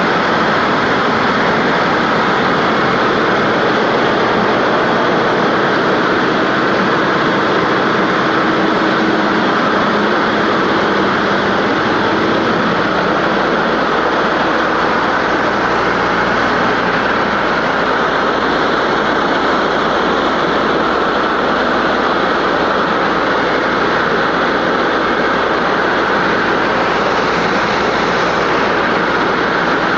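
John Deere PowerTech 4.5 L four-cylinder turbocharged diesel running steadily and loud, driving a 100 kW MTU standby generator under load from a portable load bank. A deeper hum comes in about halfway through.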